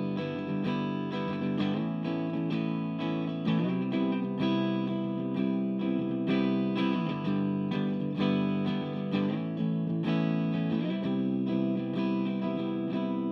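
Electric guitar played through a Cort CMV15H tube amp head and a 1x12 cabinet with a Celestion Seventy 80 speaker: chords struck in a steady rhythm, about two strokes a second.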